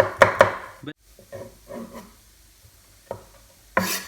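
Knife chopping garlic on a cutting board: quick strokes about five a second that stop about a second in, then two single knocks of the knife near the end.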